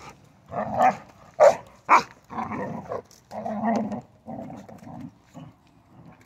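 Young Rottweiler growling and grunting in short, uneven bursts while mouthing and tugging at a large stick, with two short sharp sounds, the loudest, about a second and a half and two seconds in.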